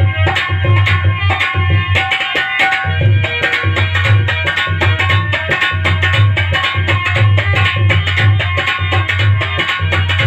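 Instrumental interlude of dehati folk bhajan music. A hand drum beats a fast, steady rhythm with sharp clicking strokes on top, under a sustained instrumental melody, and no one is singing.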